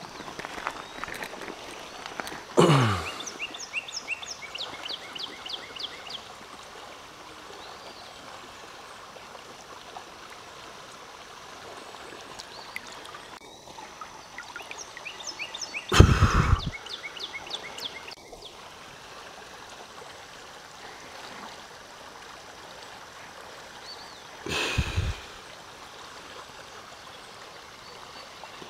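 Shallow creek water running steadily, with a rapid high chirping trill twice in the background. Three short loud low bumps come near the start, midway and near the end.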